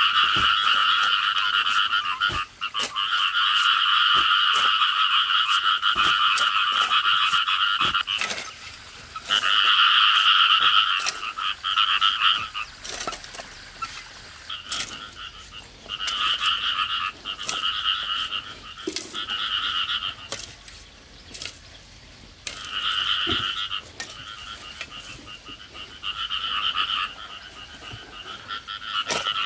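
Frogs calling in a chorus, in bouts that last several seconds at first and then come in shorter spells of a second or two. Under the calls, short knocks and scrapes of a hoe chopping into dry soil.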